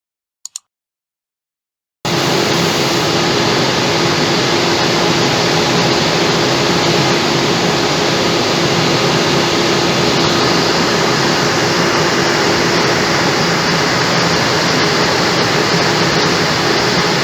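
A short ding, then about two seconds in a dump truck's engine cuts in abruptly, running steadily and loudly with a constant hum under heavy noise.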